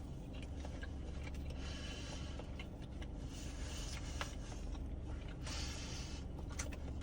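Low steady hum with faint, scattered clicks and scrapes of someone starting to eat a plate of food.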